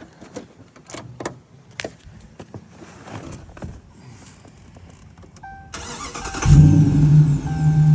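A 2015 Dodge Charger R/T's Hemi V8 starting on a newly replaced starter: a few light clicks and a short electronic beep, then the engine cranks and fires about six and a half seconds in and settles into a steady idle.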